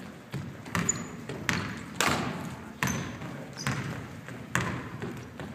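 A basketball being dribbled on a hardwood gym floor: a string of sharp bounces, roughly one every half second to second, echoing in the hall, with a few short sneaker squeaks.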